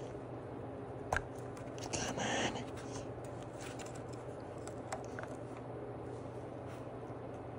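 A few light clicks and scrapes of a metal pick working at the plastic drive gear and clip on a lawn mower's wheel axle, with a short louder scrape about 2 seconds in, over a steady low hum.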